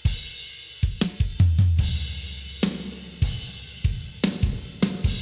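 Recorded drum kit (kick, snare, hi-hat and cymbals) played through a MicMix Master Room XL-305 two-channel spring reverb, each hit trailing off in a long reverb tail.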